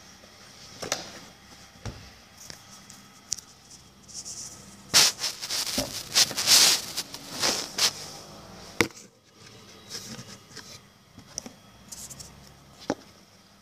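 Puzzle pieces being handled and set down against each other on carpet: scattered light clicks and knocks, with a denser run of knocks and rubbing about five to eight seconds in.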